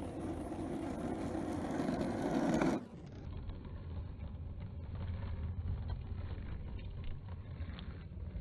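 RipStik caster board's wheels rolling on asphalt: a rough rumble that grows louder as it comes closer, cut off abruptly about three seconds in, followed by a duller, lower rolling rumble with faint ticks.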